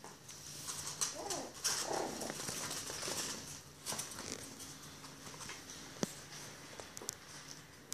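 Young Bichon Frise puppies giving a few short whimpers in the first few seconds, over light clicking and rustling of small paws on the floor and training pads. A single sharp click about six seconds in.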